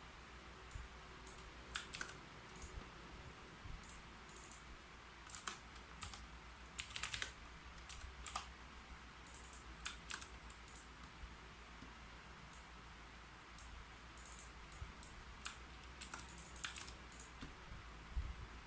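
Typing on a keyboard: irregular clusters of key clicks separated by short pauses, with a sparser stretch a little past the middle.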